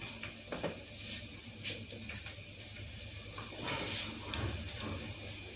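Faint room noise: a steady low hum with a few light taps and rustles.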